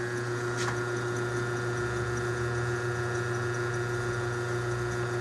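Old belt-driven lathe running on a clothes-dryer motor: a steady electric hum with a constant higher whine. One faint click under a second in.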